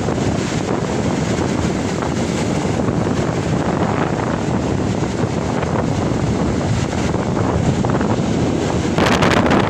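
Rough sea: steady surf noise with strong wind buffeting the microphone, which grows harder near the end.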